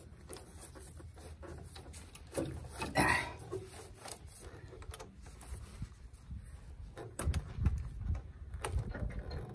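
Scattered knocks, clunks and light clicks of a part and tools being handled and worked into place on a small tracked dumper, with a louder scrape or rattle about three seconds in and a few dull thumps near the end.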